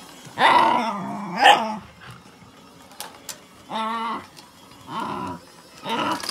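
A dog barking in short bursts, about five times, with two sharp clicks around the middle.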